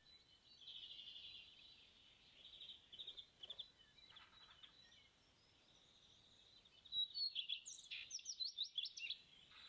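Faint birdsong: scattered high chirps and trills, then a livelier run of quick, falling whistled notes in the last three seconds.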